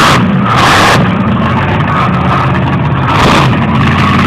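Monster truck engine running hard and revving, loud throughout, its pitch stepping up a little about three seconds in.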